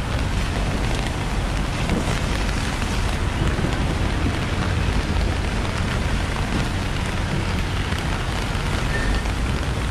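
Steady rain falling on wet pavement, an even hiss with a low rumble of street traffic underneath.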